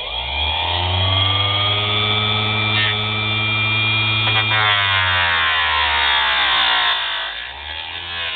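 Homemade mini grinder with a small cut-off disc spinning up to a steady whine, then dropping and wavering in pitch about halfway through as the disc bites into plexiglass.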